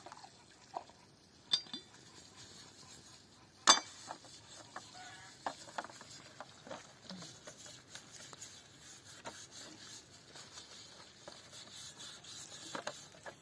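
Scattered light clinks and knocks of objects being handled, with one sharp ringing clink about three and a half seconds in.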